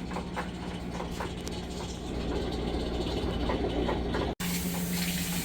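A steady low mechanical hum with a few faint knocks; about four seconds in the sound cuts out for an instant and resumes with the hiss of water running from a tap or shower.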